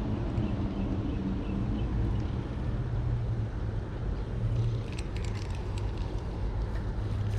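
Road traffic from passing cars: a steady low rumble, with a few light clicks from about five seconds in.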